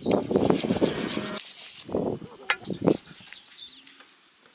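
Large knife cutting into a whole raw plucked chicken, slicing through skin and joint: one long stroke in the first second and a half, then two short strokes, then quieter.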